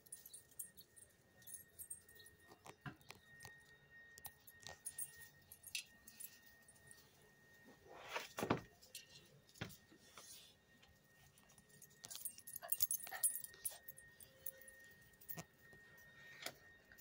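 Light metallic jingling, typical of a dog's collar tags, with scattered small clicks and rustles as a small dog moves about. There is one louder thump about eight seconds in, and a faint, thin, steady high tone that comes and goes.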